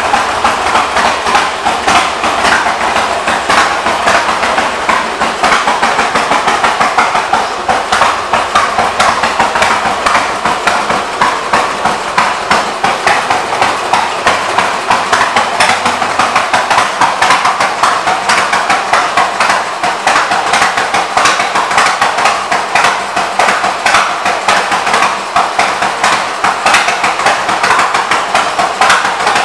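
Harley-Davidson Sportster 883's air-cooled Evolution V-twin running, probably at idle, through aftermarket exhaust pipes. It makes a loud, fast, uneven clatter of exhaust pulses and engine knocks that goes on steadily.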